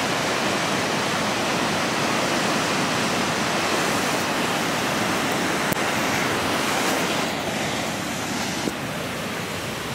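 Water gushing out of a dam's outlet tunnel into a concrete channel: a steady rushing noise that eases a little in the last few seconds.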